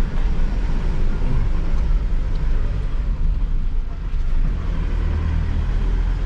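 Mitsubishi L200 Triton pickup climbing a slippery dirt hill track in two-wheel drive: a steady low engine and tyre rumble, a little stronger about five seconds in.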